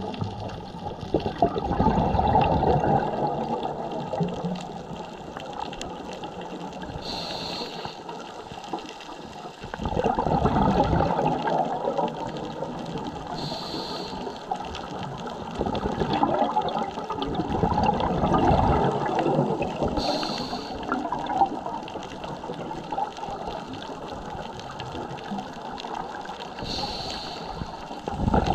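Scuba diver breathing through a regulator underwater: a brief hiss on each inhale, then a long gush and rumble of exhaled bubbles, in a slow cycle of about one breath every six or seven seconds.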